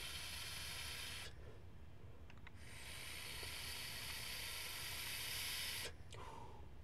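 Two long, airy hisses of a heavy hit on a Horizontech Vertex Plus rebuildable tank atomizer vape: air drawn through the tank's airflow over the firing coil, then the vapour cloud blown out. The first hiss stops about a second in. The second starts after a short pause and stops abruptly near the end.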